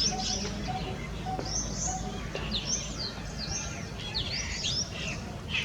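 Coppersmith barbet giving its repeated short 'tuk' note, about twice a second through the first half, while other small birds chirp louder and higher over it.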